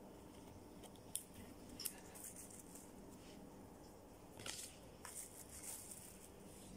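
Pokémon trading cards being handled, giving a few faint short swishes and ticks as the cards slide against each other, with a cluster of them a little past halfway.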